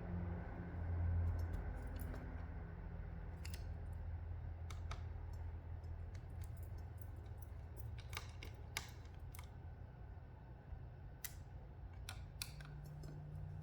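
Scattered, irregular small clicks and taps of a screwdriver on screws and the plastic and metal of a laptop's drive bay as the drive's retaining screws are removed, over a low steady hum.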